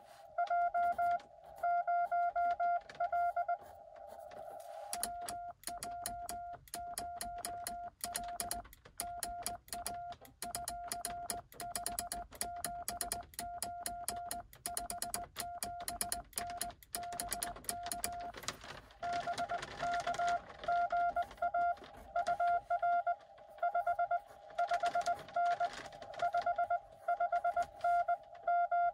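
Morse code from a Xiegu X6100 transceiver during a CW contact: a received signal beeping on and off through a band of receiver hiss. From about five seconds in, the operator's own sending on a cootie (sideswiper) key follows, its contacts clicking sharply with each dit and dah under the sidetone. From just before twenty seconds, another received reply keys in through the hiss.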